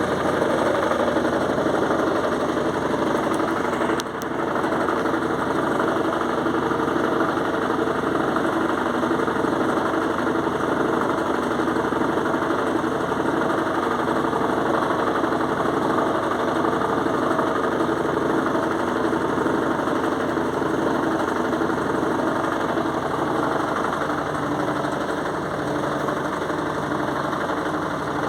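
Electrolux washing machine on its spin cycle with a duvet inside: a loud, steady mechanical noise with a slow regular pulse about every second and a half. The noise startled the owner, who thinks it is normal for the spin.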